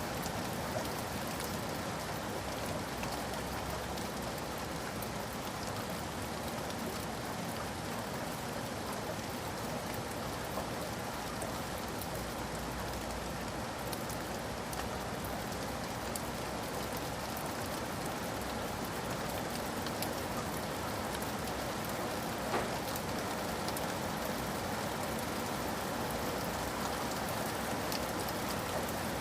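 Steady rainfall: an even, unbroken hiss of rain with scattered sharper ticks of individual drops striking a surface.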